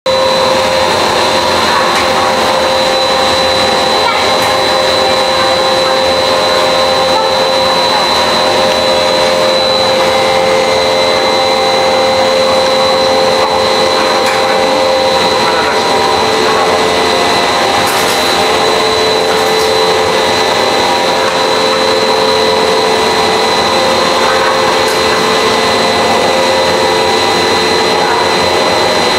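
SKJ350 flat-die pellet mill running steadily under load while it presses out pellets: a loud, even machine noise with several steady high whines from the drive over it.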